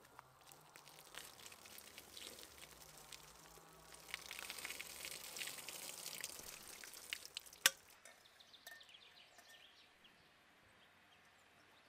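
Water poured over an upturned stainless steel pot, splashing and rinsing away cleaning foam that crackles and fizzes. The fizzing gets louder around the middle, a single sharp click comes about two-thirds of the way through, and it dies down near the end.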